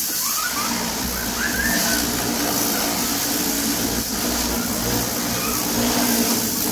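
High-pressure plunger-pump car washer running steadily: the electric motor and pump hum under the hiss of the water jet.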